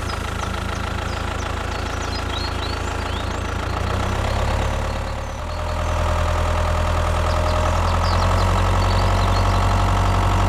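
Tractor engine running steadily at a low idle-like drone, getting louder about five and a half seconds in as the tractor pulls the loaded trailer.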